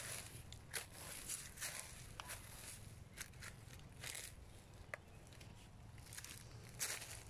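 Footsteps crunching on dry fallen leaves and loose stones, in uneven steps with short crackles.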